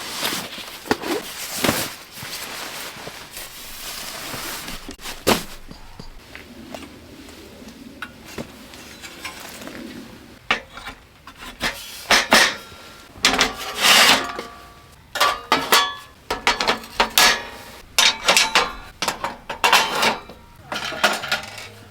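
Camping gear being handled: a string of clinks, knocks and rubbing of metal and wood items, sparse at first and busier in the second half.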